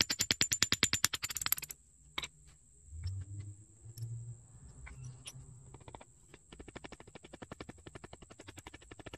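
Rapid light taps of a claw hammer, about ten a second: a loud run on a metal rod held against a wooden board in the first second or two, then, after a pause, a quieter run from about six and a half seconds in as the hammer crushes dried red clay into powder on the board. A faint steady high tone sits under both runs.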